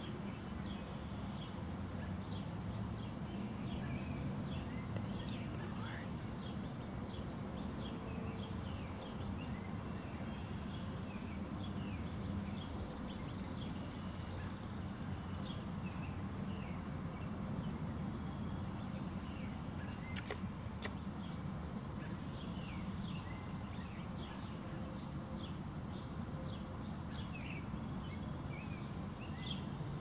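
Outdoor ambience: a high chirp repeated about four times a second in runs of several seconds, over scattered short bird chirps and a steady low background noise.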